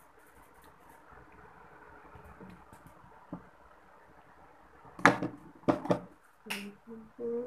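A few sharp coughs about five seconds in, then a short voiced throat-clearing sound, after several seconds of faint rustling as the face-mask sachet is handled.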